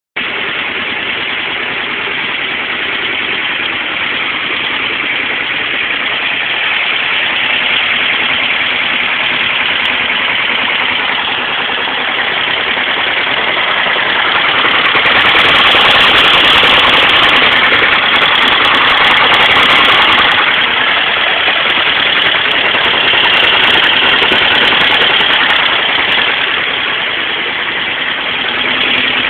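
Kawasaki ER-5 motorcycle's parallel-twin engine running steadily, growing a little louder about halfway through before settling back.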